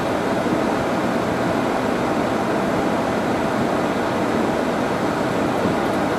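Steady heavy rain, with car tyres hissing and splashing through standing water on the road.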